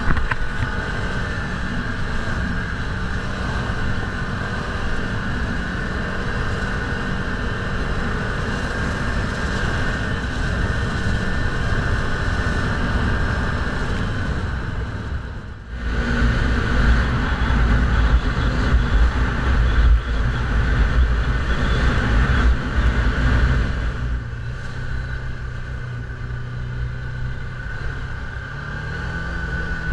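Side-by-side UTV driving along a gravel trail, heard from the driver's seat: steady engine running with tyre and road noise. A short drop about halfway through is followed by a louder low rumble for several seconds.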